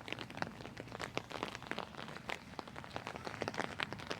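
Heavy rain: drops tapping close to the microphone in quick, irregular ticks.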